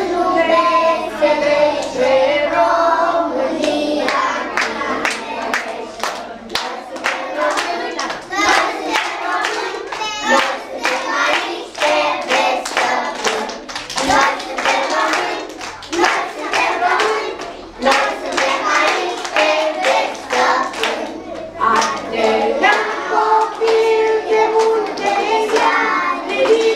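A group of young children singing a Romanian patriotic song together, with hand clapping running through the middle of the song.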